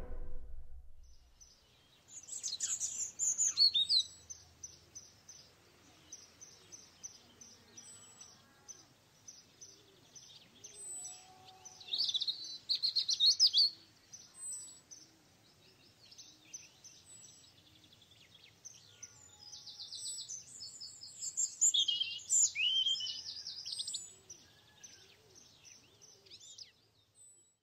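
Songbirds chirping and trilling in high-pitched bursts, with quieter stretches between; the last of a music chord dies away in the first second.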